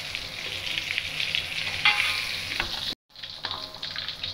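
Vegetarian mock chicken pieces sizzling in hot oil in a steel wok while a metal spoon scrapes and scoops them out, the frying done. The sound drops out for a split second about three seconds in.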